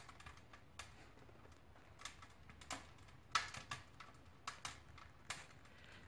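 Wood fire crackling inside a closed stove-fireplace, burning briskly with the flue damper fully open: faint, irregular sharp snaps and pops, roughly one or two a second.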